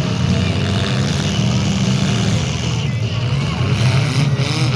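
Engines of several compact demolition derby cars and pickups running loud and rough in the arena, a steady low rumble with no clear crash.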